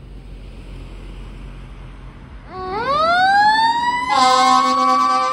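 Fire engine siren winding up about halfway in, its pitch rising steeply and then levelling off into a sustained wail. About a second and a half later a steady, low fire-truck horn blast joins it. Before the siren there is only faint road and wind noise.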